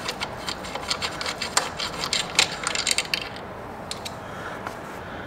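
A T40 Torx screwdriver working a bolt loose from a motorcycle's factory rearset: irregular light metallic clicks and scrapes, thinning out after about three seconds.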